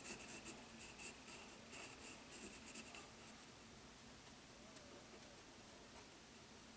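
A TOPModel coloured pencil scratching on paper in quick, short shading strokes, laying skin tone. The strokes thin out after about three seconds, leaving a few faint ticks.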